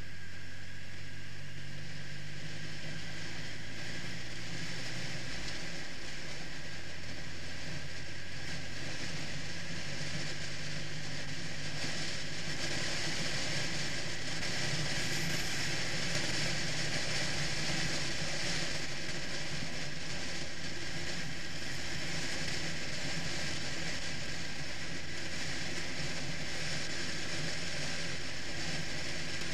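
Triumph Rocket III's inline three-cylinder engine running as the motorcycle cruises, with wind rushing over the microphone. The engine note shifts about six seconds in, and the wind grows louder midway.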